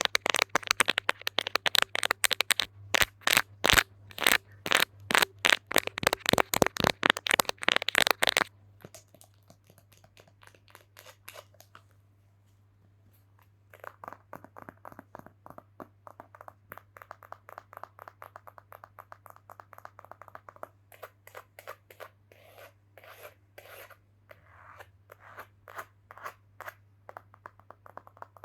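Rapid ASMR knocking and tapping on an object, many sharp taps a second. The taps are loud for about the first eight seconds, then turn much softer, stop briefly near the middle, and go on as quicker, lighter tapping.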